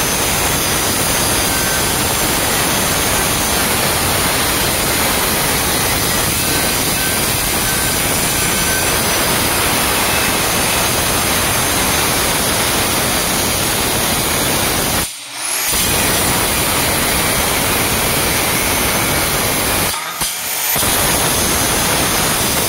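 Handheld electric marble cutter running at full speed, its diamond disc grinding through a Kota stone slab with a loud, steady, gritty noise. The noise drops away briefly twice, about two-thirds of the way through and again near the end.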